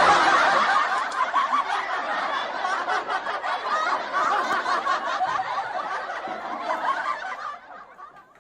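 Laughter, loud and continuous, dying away about seven and a half seconds in.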